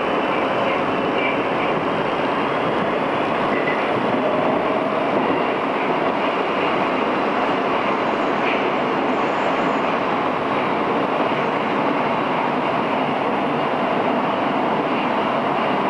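Metro train, an 81-760/761 'Oka', heard from inside the car while it runs through the tunnel between stations: a steady rushing din of wheels on rails.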